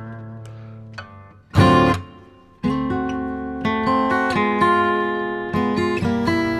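Background music on acoustic guitar: plucked notes, a loud strummed chord about one and a half seconds in, a brief near-pause, then the playing resumes with ringing notes.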